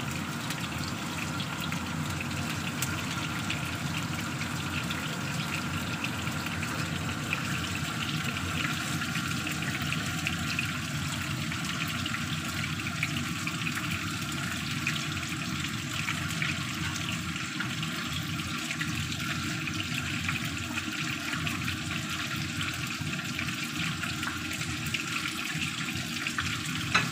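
Marinated chicken pieces frying in a pan over a low flame: a steady sizzle with fine crackling throughout.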